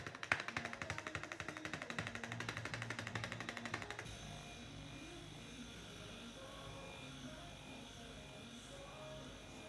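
Rapid, even mechanical tapping from a handheld percussion device used in a chiropractic treatment, about ten strikes a second, stopping about four seconds in. Soft background music plays underneath and carries on alone afterwards.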